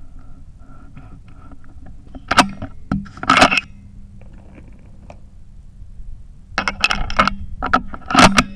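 Metallic clicks and clacks of a Ruger Precision Rifle's bolt being worked after a .338 Lapua Magnum shot, cycling out the spent case: a few sharp clacks about two and a half to three and a half seconds in, then a quicker run of clacks near the end.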